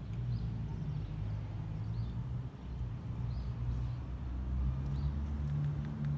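Yamaha XSR900's inline-three engine idling through an SP Tadao Power Box full stainless exhaust, a steady low note that rises slightly about two-thirds of the way in.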